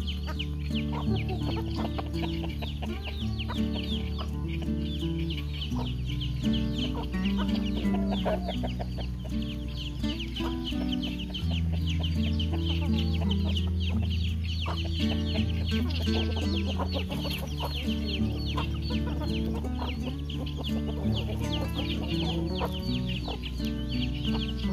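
Background music with held bass notes, with chickens clucking over it.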